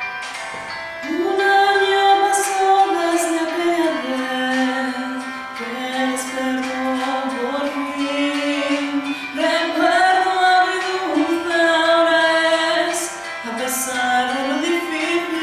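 A woman singing a slow melody unaccompanied by words that the recogniser could catch, in long held notes that slide up and down between pitches; her voice comes in about a second in.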